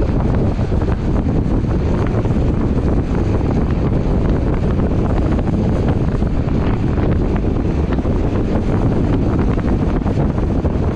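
Heavy wind buffeting the microphone at about 55–60 km/h downhill, mixed with the steady roll of longboard wheels on asphalt.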